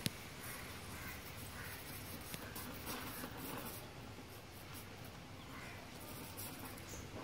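Steady hiss of a small gas welding torch flame playing on a motorcycle silencer pipe, with a single sharp click right at the start.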